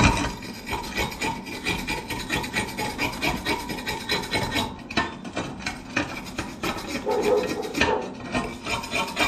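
Wire brush scrubbing slag off a fresh flux-core weld on steel tubing: rapid, uneven back-and-forth scraping strokes, pausing briefly about five seconds in.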